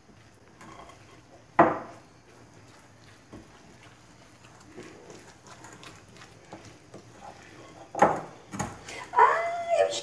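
Batter being mixed by hand in a glass bowl, faint, broken by short loud animal calls, one about a second and a half in and more near the end.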